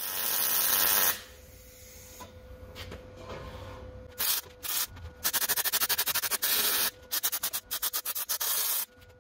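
Electric welding arc on a steel bumper: an even hiss for about the first second, then, after a quieter stretch, the arc starting and stopping in quick, evenly spaced pulses, several a second.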